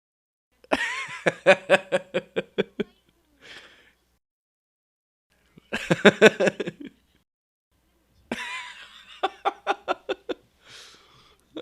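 A man laughing in three bouts of quick, rhythmic laughs, about five pulses a second, each bout followed by a short breath.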